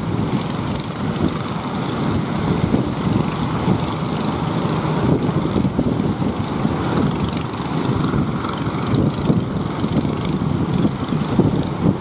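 Strong sea wind buffeting the microphone over the continuous rush of big breaking waves.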